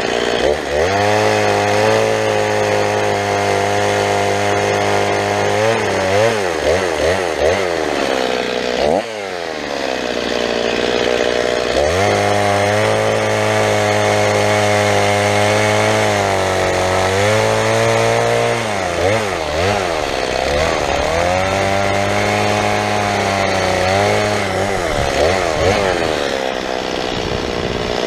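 Two-stroke petrol chainsaw cutting through a thin fallen branch, held at a steady high throttle through each cut. Between cuts the revs blip rapidly up and down, and about nine seconds in they drop briefly and climb again.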